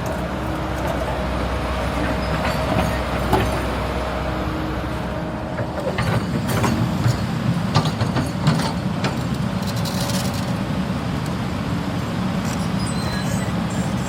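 Cat 320 GC hydraulic excavator's diesel engine running steadily, with a run of sharp metallic clanks about six to nine seconds in.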